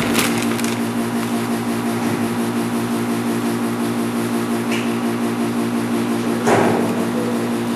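Hollymatic HVT-30 vacuum tumbler running steadily, its motor humming as the drum turns with the marinating meat. A brief louder knock comes near the end.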